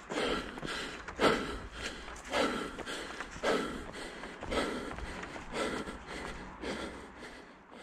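A runner breathing hard: a rhythmic, breathy exhalation about once a second, fading near the end.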